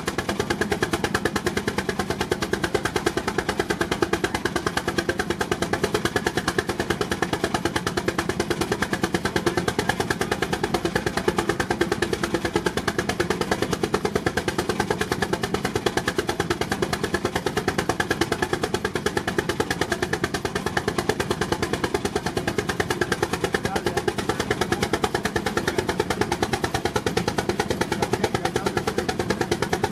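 Baker Uniflow steam traction engine working hard under load on a Prony brake, its exhaust beating in a fast, even rhythm without a break.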